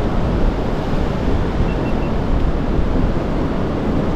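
Steady wind noise on the microphone, a loud, uneven low rumble, mixed with the wash of ocean surf on the beach.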